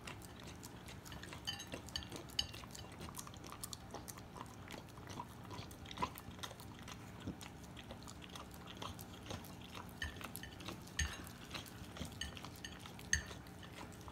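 A dog licking and chewing at a cake on a plate: an irregular run of small licks and clicks, a few of them louder.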